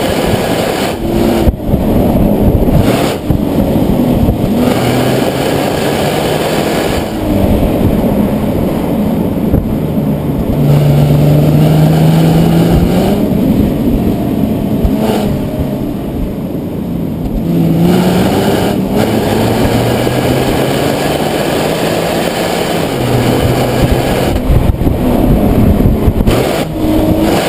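Nissan 370Z's 3.7-litre V6 engine under hard acceleration, its pitch climbing and dropping again and again as it revs up and shifts through the gears.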